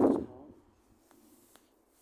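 A brief burst of a man's voice at the very start, then near silence with two faint clicks.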